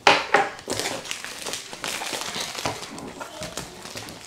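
A cardboard box and its packaging being handled and opened by hand: a sharp knock at the start, then continuous rustling and scraping with small clicks.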